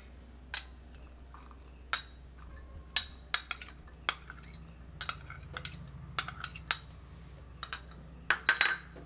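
Light, irregular clinks and taps of a ceramic bowl knocking against the rim of a ceramic mug as sliced onions are tipped and scraped into raw egg, about a dozen small knocks with a faint low hum beneath.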